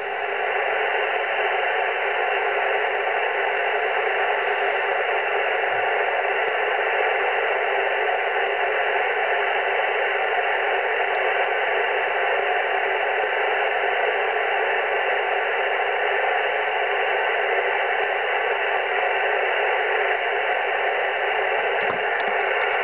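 Amateur radio transceiver tuned to 21.252 MHz in the 15-metre band, its speaker giving a steady hiss of static with no station coming through. A few clicks near the end.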